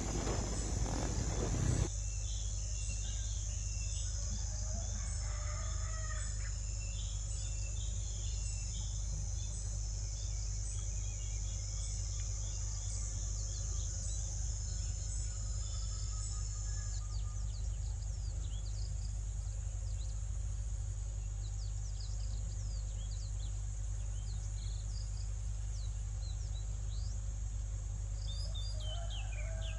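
Outdoor ambience: scattered short bird chirps over a steady high insect drone and a constant low hum, with a longer call about five seconds in and falling calls near the end. A loud rustling noise covers the first two seconds.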